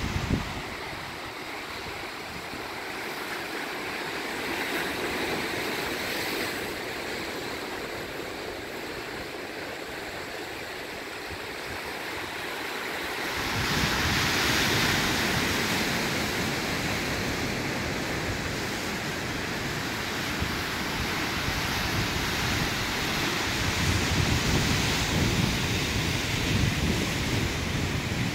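Ocean surf washing and breaking around rocks, a steady hiss of water. About halfway through, wind on the microphone adds a low rumble and the hiss grows louder.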